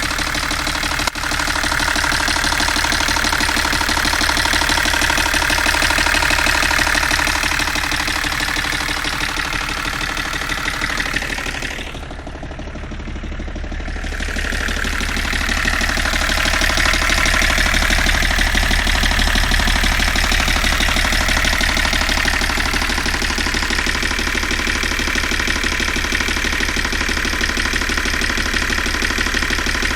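GAZ M21 Volga's four-cylinder engine running with a knock, the fault the owner is recording. The sound dips briefly and turns duller about twelve seconds in, then comes back up.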